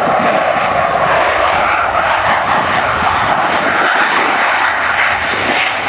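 F-16 fighter jet's engine, a loud, steady jet noise.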